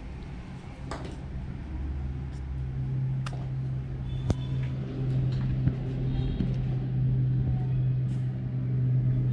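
A steady low motor hum that sets in about two seconds in and grows louder, with a few faint clicks over it.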